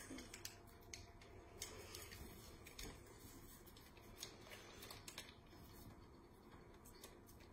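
Near silence with faint scattered clicks and light taps from kitchen utensils and a mixing bowl being handled.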